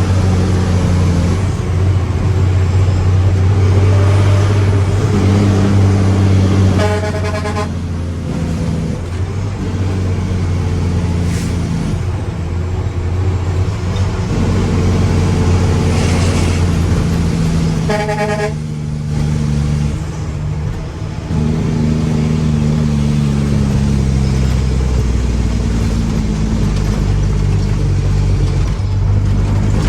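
Mack truck's diesel engine running, its engine speed rising and falling as the truck is driven. Two short horn toots about 7 and 18 seconds in.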